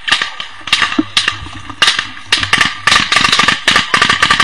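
Close-range small-arms gunfire in a firefight: a rapid, irregular string of sharp shots, several a second, coming closer together in the second half.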